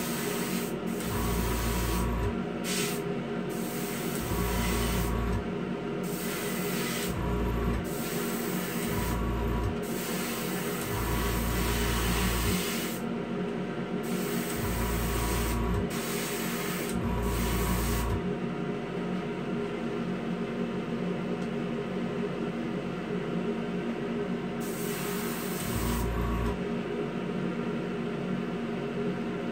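Airbrush spraying clear coat in repeated short bursts of hiss, about a dozen in quick succession, then a pause and one more burst near the end. Underneath runs the steady hum of the airbrush compressor and the spray booth's exhaust fan.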